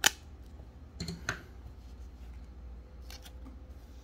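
A trading card being slid into a plastic card sleeve: one sharp click at the start, then a few short scrapes and rustles of card against plastic about a second in and again near three seconds.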